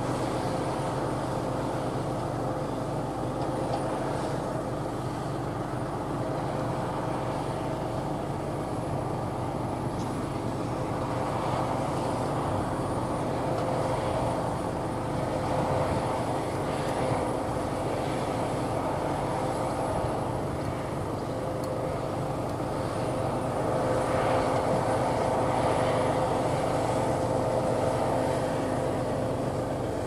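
Claas Lexion 670 combine harvester working under load in barley: a steady drone of engine and threshing machinery with a constant whine, swelling slightly louder in the middle and again near the end.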